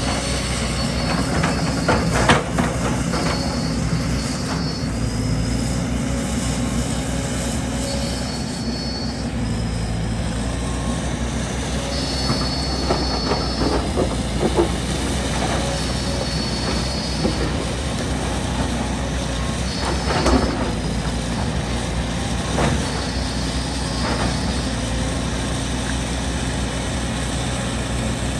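Excavator at work: its diesel engine running steadily, with high squeals that come and go every few seconds and a few sharp knocks, the loudest about two seconds in and again about twenty seconds in.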